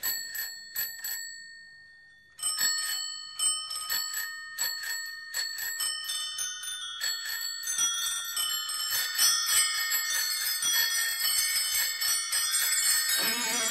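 The bicycle-bell interlude of a recorded rock song: many bicycle bells ringing. A few single rings come first, then after a short gap a growing flurry of overlapping rings. Electric guitar comes in near the end.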